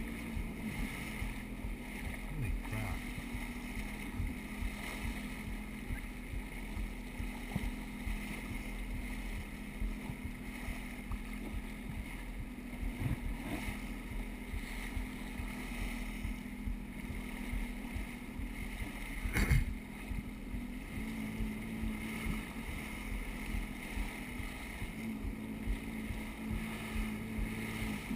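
Jet ski engine running steadily at cruising speed, with wind and water spray rushing past. A single loud thump comes about two-thirds of the way through.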